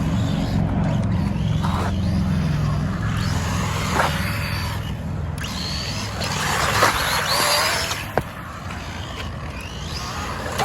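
Rlaarlo ROG1 RC car's brushless motor whining up and down in short bursts as the car is driven, with a few sharp knocks from the chassis and tires.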